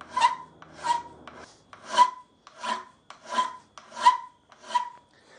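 Hand file being pushed across the cut end of a steel bolt to file it flat. There are seven steady rasping strokes, about three every two seconds, each with a short metallic ring, and the strokes stop near the end.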